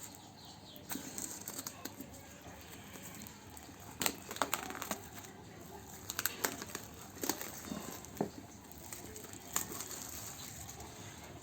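Tablet packaging being handled during unboxing: crinkling and rustling, with scattered sharp clicks and taps.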